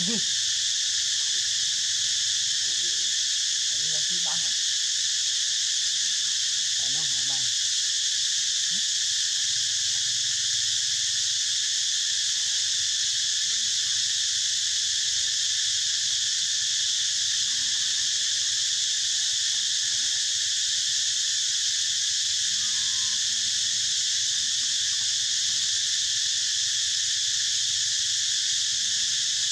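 Steady insect chorus: a constant high, shrill buzzing that neither rises nor falls, with a few faint, brief low sounds about four and seven seconds in.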